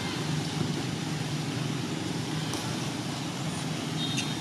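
Steady low motor hum under a hiss of outdoor background noise, with a few short high chirps near the end.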